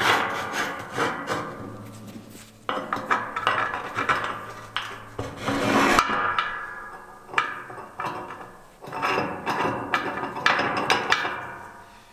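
Steel scraping and knocking against steel at a welded hinge under a sheet-steel tray, in uneven bouts that build and fade, with brief ringing knocks.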